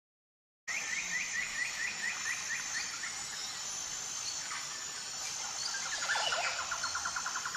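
Forest ambience over a steady hiss, starting under a second in: birds calling, first a run of quick repeated chirps, then a fast trill near the end.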